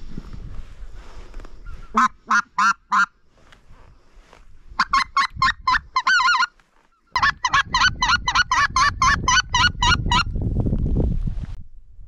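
Geese honking in short runs of calls: a few honks about two seconds in, more around five to six seconds, then a quick string of about a dozen honks. A low rumble runs underneath and swells near the end.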